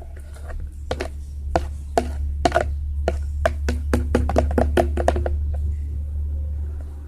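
A spoon clicking and knocking irregularly against a plastic cup, about three or four times a second, as glue and water are stirred together for slime, over a steady low hum. The clicks stop about a second and a half before the end.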